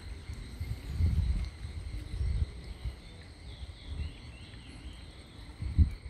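Wind buffeting the microphone in irregular low gusts, over a faint steady high insect trill.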